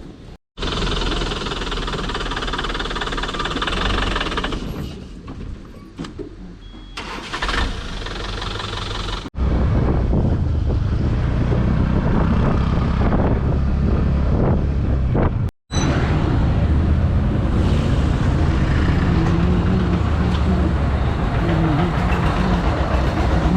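Vehicle engine and road noise while travelling, heard in several edited segments: the sound cuts out briefly about half a second in and again about fifteen seconds in, and becomes louder with a heavier low rumble about nine seconds in.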